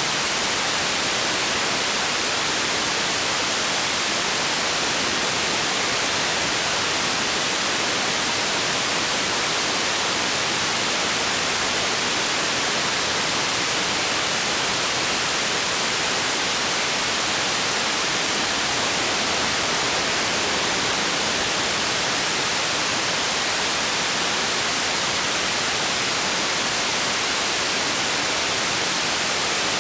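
Steady, unchanging static hiss, heaviest in the treble, typical of an analog FPV video receiver's audio channel with no sound being sent.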